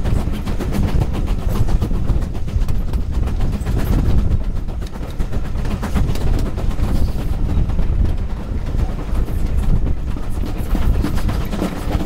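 Wind buffeting the microphone held out of a moving train's carriage window, with the train's running noise under it, loud and unbroken.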